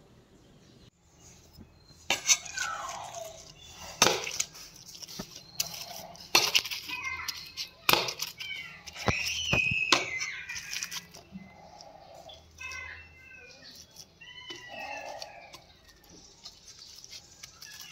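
Sharp knocks and clatter of kitchen utensils on a plate and pot, with a few high gliding cries between them.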